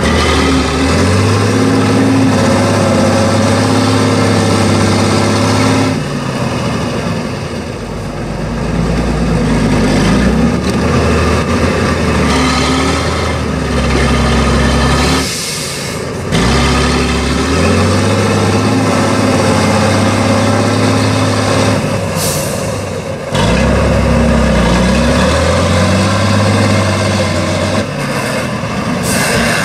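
Tatra 813 8x8 truck's air-cooled V12 diesel working under heavy load as it crawls through a ditch, its revs stepping up and down. It drops off briefly three times, about six, fifteen and twenty-three seconds in, then picks up again. A few short hisses come near the middle and the end.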